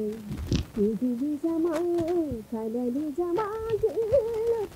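A woman singing solo, with no instruments, holding long notes that slide from pitch to pitch.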